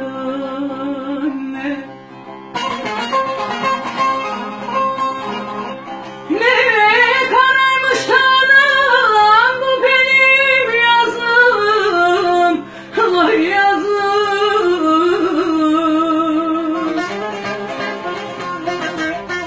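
A woman sings a Turkish folk song (türkü) in long, ornamented phrases, accompanied by a strummed bağlama (long-necked saz). Her voice grows loudest about six seconds in.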